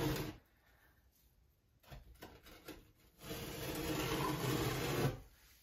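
A scraper blade scraping thinset mortar off the edge of a glass tile mosaic: one scraping stroke ends just after the start, a few light clicks follow, and a second, longer scrape runs from about three seconds in to near the end.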